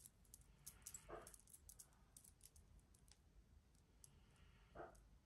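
Faint, scattered clicks of a strand of pearl beads being handled, with a couple of soft brief rustles, one about a second in and one near the end.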